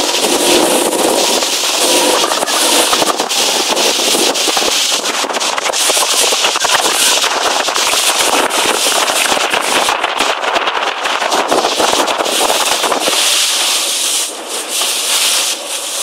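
Strong wind buffeting the microphone, a loud, dense crackling roar that eases a little near the end.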